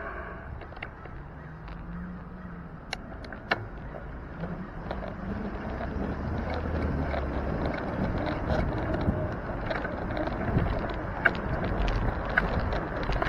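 City street traffic and road rumble heard from a moving bicycle, with car engine and tyre noise that grows louder as it goes. A few sharp clicks and rattles stand out, around three seconds in and again near the end.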